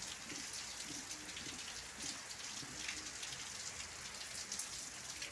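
Heavy rain falling on clay roof tiles and pouring off the eaves: a steady hiss of countless small drop impacts.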